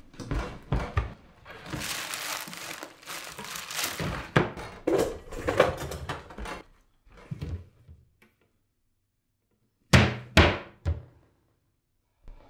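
Pots and pans clattering and scraping as a low kitchen cupboard is rummaged through, followed by a quiet pause and then two heavy thunks close together near the end.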